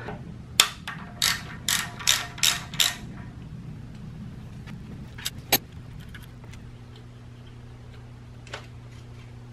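Ratchet wrench with a Torx socket clicking in a run of about seven quick strokes over the first three seconds, then a few scattered metallic clicks, while the bolts holding the top timing-chain guide on a BMW M50 cylinder head are loosened. A steady low hum sits underneath.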